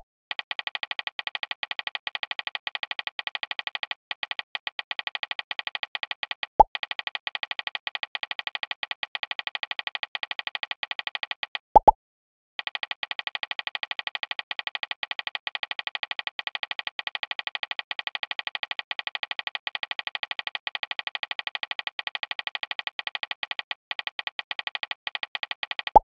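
A fast, steady stream of short electronic key-tap sounds, a phone keyboard typing effect. It pauses briefly near the start and again about twelve seconds in. Short message 'plop' notification sounds, falling in pitch, come about six seconds in, twice near twelve seconds, and at the very end.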